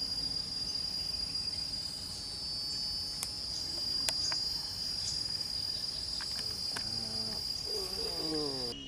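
Insects droning steadily at one high pitch, with a couple of sharp clicks about three and four seconds in.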